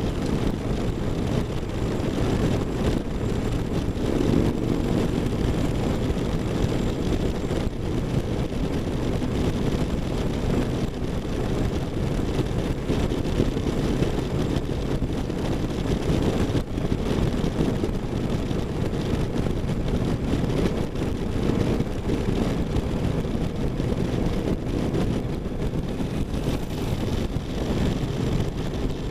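Onboard sound of a V-twin cruiser motorcycle cruising steadily at highway speed: an even engine rumble mixed with wind rush on the microphone, holding steady throughout without revving or gear changes.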